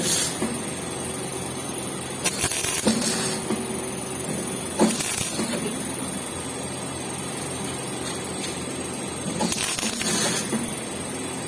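MIG welder striking short bursts of arc, about four crackling sizzles each lasting up to about a second, over the steady hum of the welding machine.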